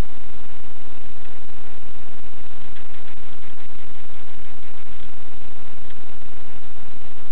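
Loud, steady static hiss with a faint buzz running under it, with no distinct events.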